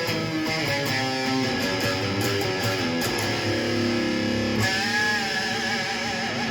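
A stringed instrument playing a run of notes, some held with wavering pitch from about two-thirds of the way in.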